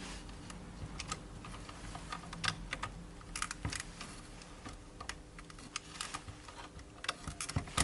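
Irregular light clicks and taps of small parts being handled as the top piece of a 3D printer's Z-axis assembly is fitted back on.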